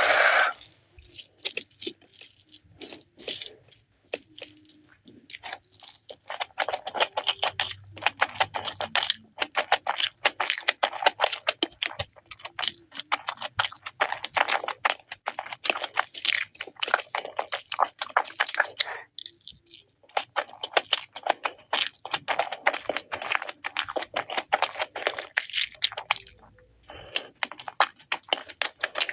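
Close-up crunching and chewing of crispy fried chicken: dense crackles of biting and mouth noise with a couple of brief pauses.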